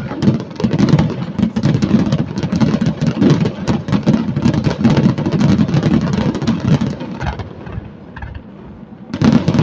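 A rapid barrage of fireworks going off: dense booms and crackles over a deep rumble. It dies down about eight seconds in, then comes back loudly just before the end.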